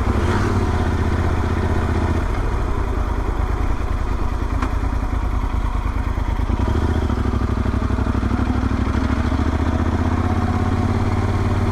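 Motorcycle engine running under way, with a steady low note that shifts about two seconds in and again near seven seconds, as throttle or gear changes.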